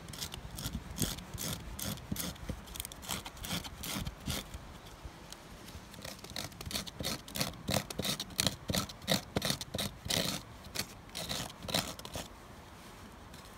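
Knife blade scraping and shaving a piece of wood into tinder, with quick repeated strokes that stop about a second before the end.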